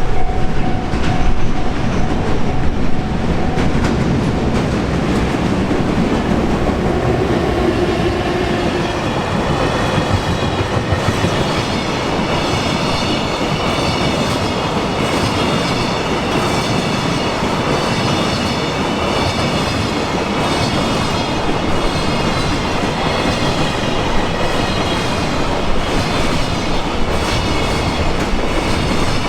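A long freight train passing over a level crossing, its wheels clattering steadily over the rail joints. A pulsing crossing alarm is heard at the very start, and from about ten seconds in a high, steady wheel squeal runs over the rumble.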